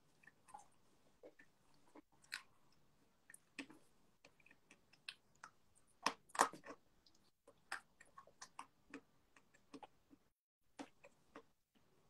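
Chalk being bitten and chewed: scattered short, dry crunches, faint, with the loudest pair about six seconds in.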